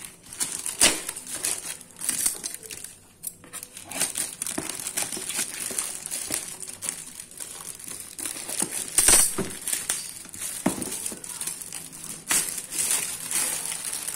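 Black plastic parcel wrapping and packing tape crinkling and rustling as a parcel is cut open with scissors and the wrapping is torn off a cardboard shoe box. The crackles are irregular, with the loudest about nine seconds in.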